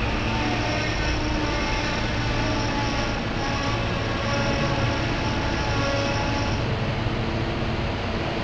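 SEPTA Silverliner V electric multiple-unit commuter train slowing as it pulls into the station: a steady whine of several held tones from its traction and onboard equipment over a low rumble. A high tone cuts off about two-thirds of the way through.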